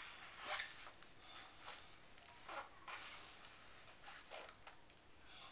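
Faint rustling and scratchy handling sounds, a handful of short ones spread through, as small hands grip and turn a torch.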